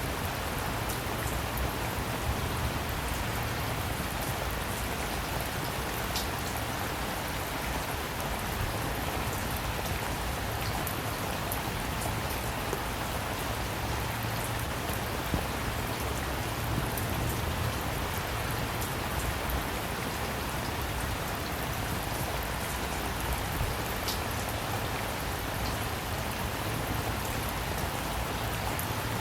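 Steady rain falling, an even hiss over a low rumble, with now and then a single sharper drop tapping.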